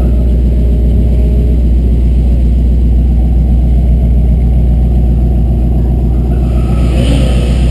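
Steady low rumble of car engines idling and creeping forward, with no revving.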